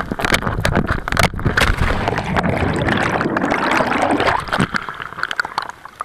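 Rushing, gurgling water and wind noise on an action camera plunging into a swimming hole with a cliff jumper, with many sharp knocks and splashes. The noise eases off after about four and a half seconds.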